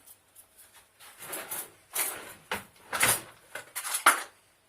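A run of short scraping and knocking handling noises, about half a dozen over a few seconds.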